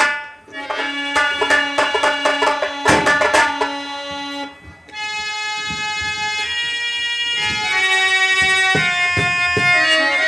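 Traditional Indian instrumental music: a hand drum played in quick strokes over a held reed-organ tone, moving after about five seconds into a sustained reed melody with changing notes.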